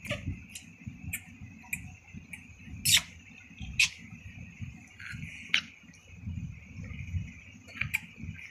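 A baby suckling at the breast: irregular wet clicks and smacks of its mouth, roughly one or two a second, the loudest about three seconds in. A steady high-pitched hum and a low rumble run underneath.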